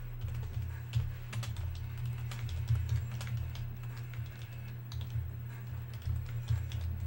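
Irregular clicking of typing on a computer keyboard, over a low, steady hum.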